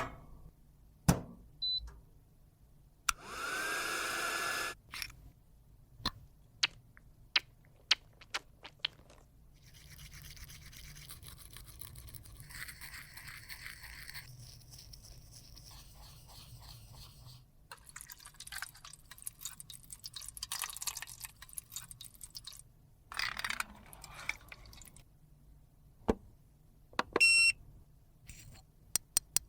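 Close-up handling of small makeup tools and containers: scattered clicks and taps. A small electric motor spins up about three seconds in and runs for a second and a half, and there are stretches of scraping and rustling later on.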